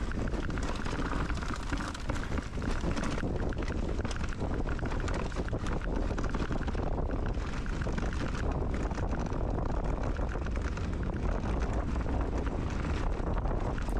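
Wind rushing over the microphone of a camera riding on a moving mountain bike: a steady low rumble, with light rattling and clicking from the bike running over the trail.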